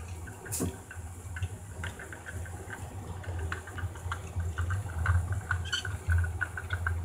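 Battery-powered Plarail toy train running on plastic track: a small motor and gearbox hum with a rapid clicking from the wheels and track joints, getting louder as the train comes closer near the end.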